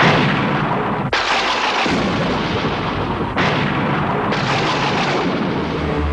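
Cartoon explosion sound effects: four loud blasts in quick succession, one at the start, one about a second in, and two more in the second half. Each is a sudden rush of rumbling noise that dies away slowly.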